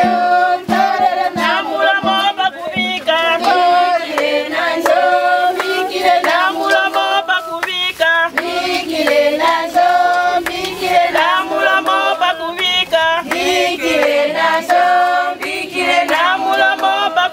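Music: a group of women's voices singing a song together, with a steady beat in the first few seconds.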